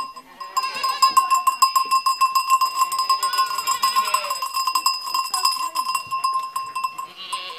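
A metal livestock bell on a goat clanking rapidly and ringing without a break as the animal moves, stopping shortly before the end. Goats and kids bleat over it.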